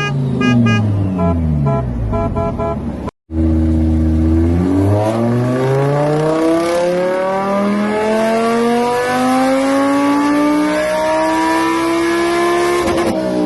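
Car engine sound: in the first three seconds its pitch falls through several steps, with a quick pulsing tone over it. After a sudden cut to silence it runs low and steady, then accelerates with one long, smooth rise in pitch that lasts most of ten seconds.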